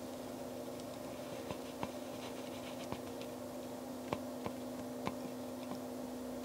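Scattered light clicks and scraping of a metal lens spanner wrench turning the retaining ring in a refractor's objective lens cell, over a steady low hum.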